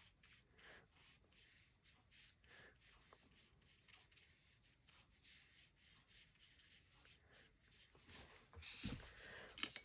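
Watercolour brush strokes dabbing and brushing on paper: faint, short scratchy strokes about two or three a second. Near the end come louder rustling and a couple of sharp clicks.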